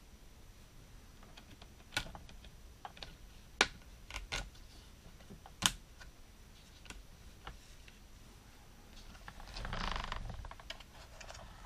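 Hard plastic toy parts clicking and knocking as they are handled: a handful of sharp single clicks, then a scraping rustle for about a second near the end as the toy jeep is moved.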